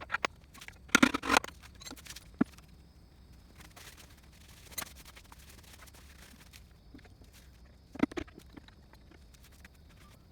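Scattered knocks and clinks of metal transmission parts and tools being handled during a teardown of a Honda Acty's manual gearbox. A quick cluster comes about a second in, single knocks follow, and another cluster comes about eight seconds in.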